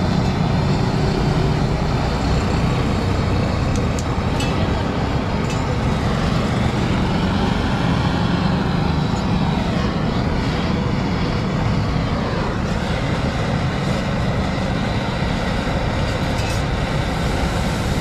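Steady low rumble of motor-vehicle noise, with a few faint clicks.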